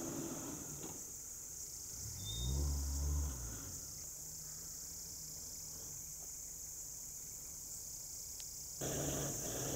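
Steady high-pitched insect chirring, with a brief low sound that rises and falls in pitch between about two and three and a half seconds in.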